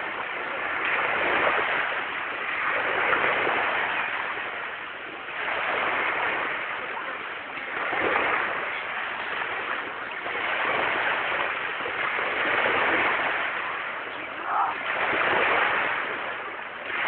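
Small waves breaking and washing up on the beach, the surf swelling and falling every two to three seconds.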